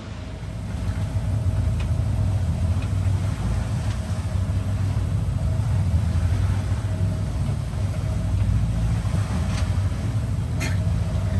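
A sailing catamaran's inboard engine running steadily, a low drone heard from inside the cabin, with a faint steady whine above it.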